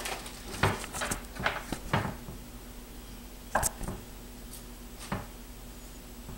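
Kitchen knife knocking on a wooden cutting board while cheese is cut: a run of quick taps in the first two seconds, then two single knocks later. A faint steady hum runs underneath.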